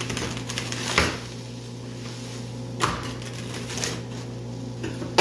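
Rolling pizza cutter wheel cutting a pizza on a metal sheet pan, its blade and the metal tongs clacking and scraping against the pan several times, a second or two apart.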